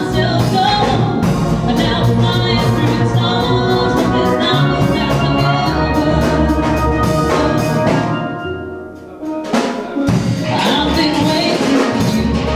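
Steel pan music over a drum beat, a quick run of struck ringing notes. The music drops back briefly about eight to nine seconds in, then comes back in full.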